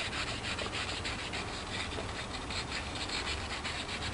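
Fine-grit sandpaper rubbed back and forth by hand over a steel brake caliper guide pin: a steady run of quick scratching strokes. It is polishing off a very thin layer of metal so the pin slides freely in its bore, to cure a knocking caliper.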